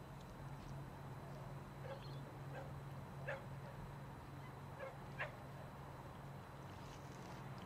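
A dog barking faintly: five short yips spread over a few seconds.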